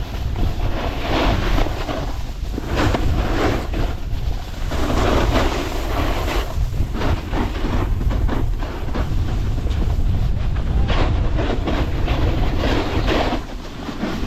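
Snowboard edges scraping across packed snow in repeated swells as the rider carves from turn to turn, under a steady rumble of wind on the microphone.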